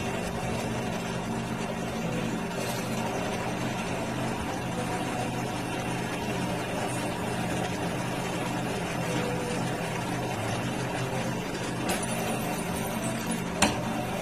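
A workshop machine's electric motor running with a steady hum, with two sharp clicks near the end, the second louder.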